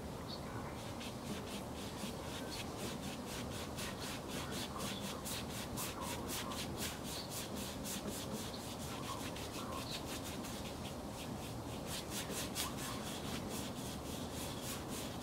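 Wide bristle paintbrush scrubbing blue paint onto a canvas wet with liquid white. It goes in quick back-and-forth scratchy strokes, several a second.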